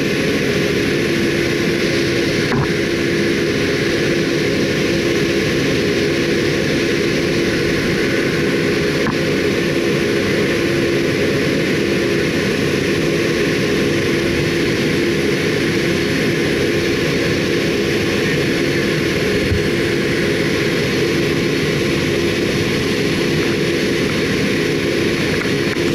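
Steady jet engine and airflow noise inside a Boeing 757 cabin during the climb after takeoff, with a steady droning tone running through it.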